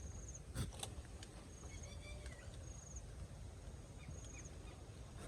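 Rural outdoor ambience: a short, high, pulsed trill repeats every second or so, with a few lower whistled calls in between, over a low rumble. Two sharp clicks come about half a second in.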